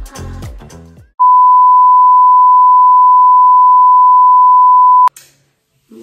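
Background music fades out about a second in. Then a loud, steady electronic beep at a single pitch holds for about four seconds and cuts off sharply with a click.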